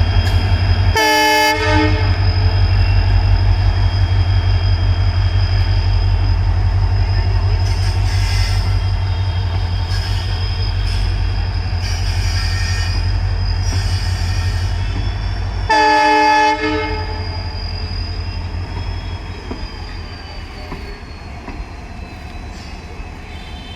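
Diesel locomotive engine chugging in a steady, fast low beat, with two short horn blasts, about a second in and about sixteen seconds in. The chugging grows fainter over the last several seconds.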